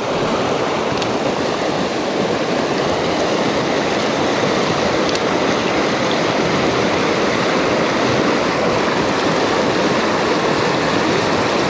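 Mountain creek water rushing steadily over rocks.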